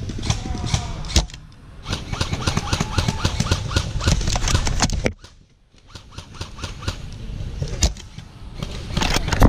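Rapid bursts of electric airsoft rifle fire, the gun's motor and gearbox cycling shot after shot in quick succession, with two sharper cracks, about a second in and near eight seconds. The firing breaks off briefly around the middle.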